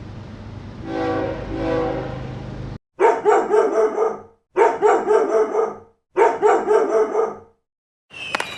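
A train horn sounding over the rumble of a moving train, swelling twice, cut off abruptly after about three seconds. Then a dog barking in three runs of rapid barks, each a second or so long with short gaps between, and near the end a crackle of firecrackers begins.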